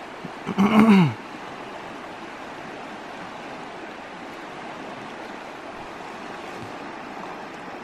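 Fast river current rushing steadily over rocks. About half a second in, a person gives one short vocal exclamation that falls in pitch, louder than the water.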